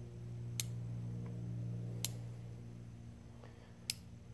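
Three sharp clicks, about a second and a half apart, as percussion caps are pushed down with a wooden dowel to seat them fully on the nipples of a Remington New Model Army reproduction black-powder revolver's cylinder. A steady low hum sits underneath.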